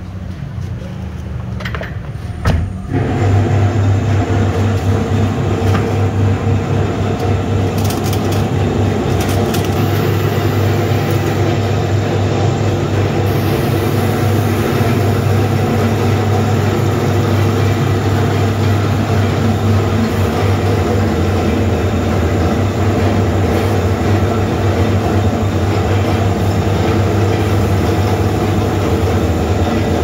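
A motor-driven machine comes up to full power about three seconds in and then runs steadily with a loud low hum, with a few clicks early on.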